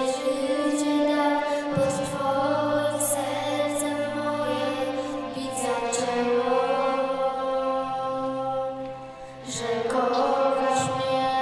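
Slow background music with long held notes over a low sustained bass; it dips briefly near the end and then comes back.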